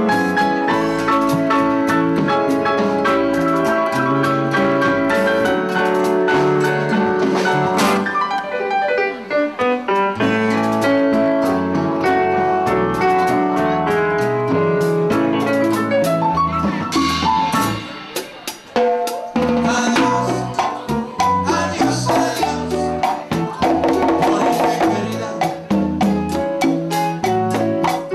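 Live Latin band playing an instrumental passage with no singing: electric keyboard chords and runs over a bass line, then after a short break about two-thirds through, a drum kit with cymbals takes over, hit fast over the bass.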